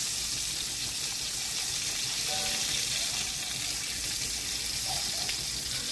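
Pieces of squirrel frying in hot oil in a cast iron skillet: a steady sizzling hiss.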